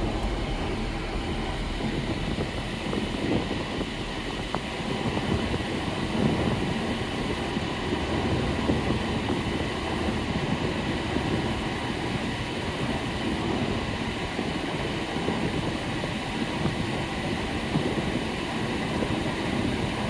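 Steady rush of air from a 1983 Mercedes-Benz W123's air conditioning blowing through the dash vents on its max setting, with the car's engine running underneath. A faint steady high tone sits above the rush.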